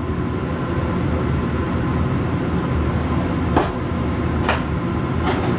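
A steady low background rumble, with a few sharp clicks of a knife against a metal sheet pan while meatloaf is cut, two of them about three and a half and four and a half seconds in.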